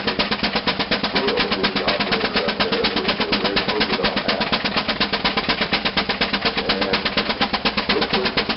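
Advance Rumely steam traction engine's stack exhaust chuffing in a rapid, even rhythm of several beats a second. The engine is working hard under load, driving a Prony brake through its belt.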